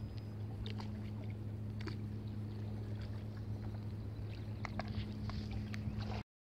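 Light water drips and small laps around a kayak on calm sea, over a steady low hum; the sound cuts off suddenly near the end.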